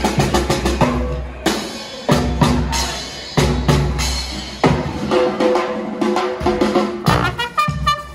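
Marching brass band playing: drums, including a bass drum, keep a steady beat under trumpets, trombones and sousaphones, with the horns coming in brighter near the end.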